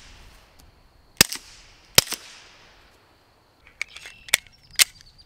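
Suppressed 9mm Glock 19 pistol shots through a SilencerCo Octane 45HD run wet with ultrasound gel in its first baffles: two sharp shots about a second apart, each with a short echo. Near the end come three quieter, sharper cracks.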